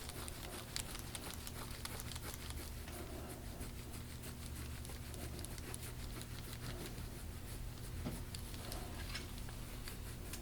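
Gua sha scraping tool dragged over the skin of a patient's back: a faint, scratchy crackle made of many small rapid clicks, over a steady low hum. It keeps catching on tissue that the practitioner calls gristle and crispy spots.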